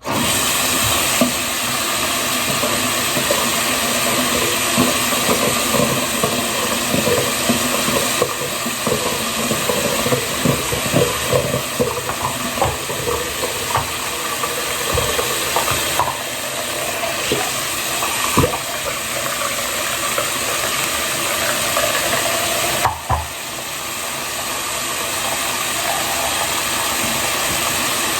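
Heavy rain falling: a steady hiss dotted with many small drop impacts and a few sharper taps.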